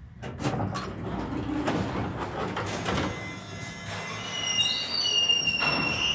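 Elevator doors sliding open with a rumble and clatter. About four seconds in, a high squeal slides up and then holds.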